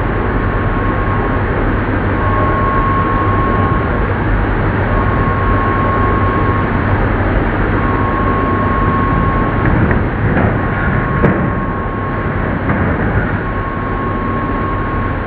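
Old metal lathe running: a steady mechanical noise with a low hum. Over it, a high tone sounds six times, each for about one and a half to two seconds with short gaps between.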